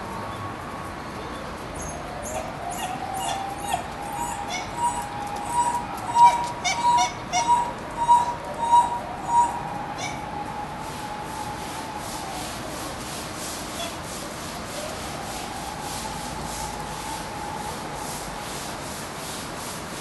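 A pair of dholes whining in a quick series of short, high calls, answering a distant siren whose slow rising and falling wail runs underneath. The calls stop about halfway through, leaving the siren's wail over a steady hiss.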